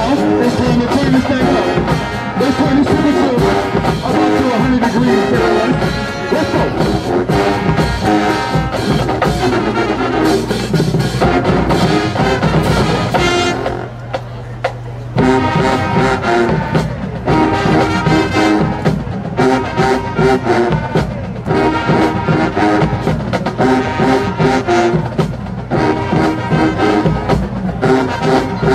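Show-style marching band playing at full volume: trombones, trumpets and sousaphones over a drumline, with frequent drum hits. About fourteen seconds in the band drops out for a moment, then comes back in at full volume.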